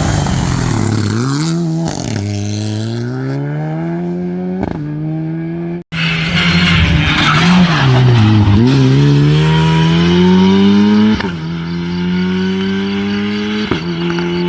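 Rally car engine accelerating hard through the gears: the note climbs and then drops back at each upshift. A sudden break about six seconds in gives way to another run accelerating the same way.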